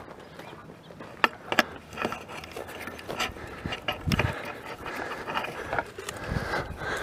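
Quick footsteps on dry grass and dirt with handheld camera handling noise: sharp clicks a little over a second in, scattered rustling, and two heavy low thumps later on as the camera is jostled.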